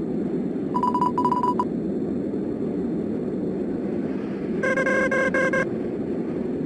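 A steady low rushing noise, with two short bursts of rapid electronic beeping over it: one at a single pitch about a second in, and a richer, several-toned one near five seconds.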